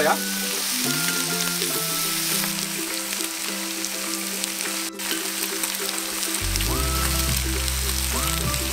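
Pork belly sizzling on a grill, a steady crackling hiss, under background music; a bass line comes into the music about two-thirds of the way through.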